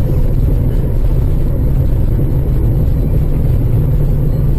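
Steady low rumble of a car on the move: engine and road noise as picked up by a dash camera.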